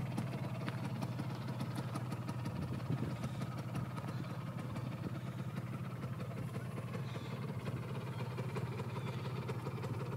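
Piaggio Ape 50's small two-stroke single-cylinder engine idling steadily.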